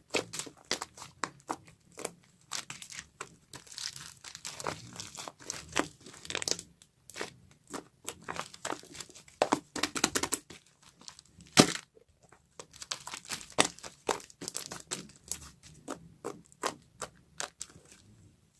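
Hands squishing and pressing pink shaving foam: an irregular run of small crackles and pops, with one louder pop about eleven and a half seconds in.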